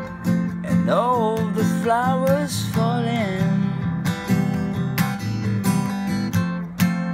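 Steel-string acoustic guitar strummed in a relaxed chord pattern. A voice sings the line "and all the flowers falling" over it in the first few seconds, then the guitar carries on alone.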